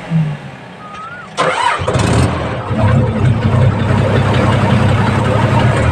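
Compact excavator's diesel engine stops at the start, then is cranked and catches about a second and a half in, running steadily afterwards.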